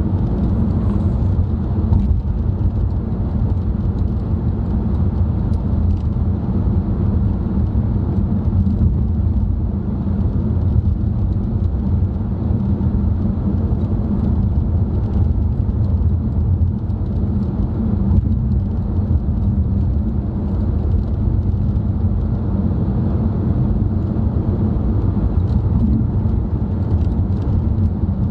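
Steady low drone of road and engine noise inside the cabin of a moving car, unchanging throughout.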